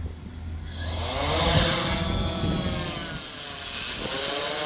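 Quadcopter's electric motors and propellers spinning up for takeoff about a second in, a buzzing whine whose pitch climbs, dips, then rises again near the end as the drone lifts off and climbs.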